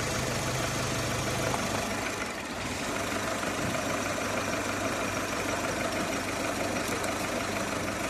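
Seat Ibiza IV's 1.4 L CGG four-cylinder petrol engine idling steadily, a used engine run in the car to show that it works.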